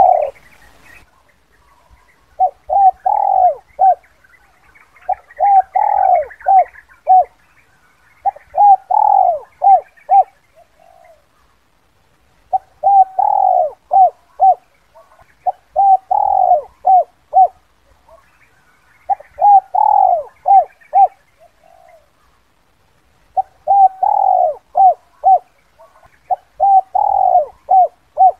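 Spotted dove cooing in the 'kuk 2' call type that dove keepers use as a lure. It gives a short phrase of several coos over and over, about every three seconds, with brief pauses between phrases.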